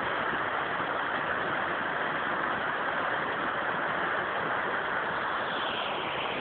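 Steady rush of a mountain stream cascading down a rocky slope: the outflow running down from the lake.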